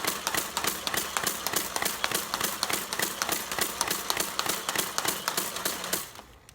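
Nerf Mega Mastodon motorized blaster firing full-auto: its flywheel motors hum steadily under a rapid, even clatter of darts being pushed through and launched, about four or five a second, stopping suddenly about six seconds in.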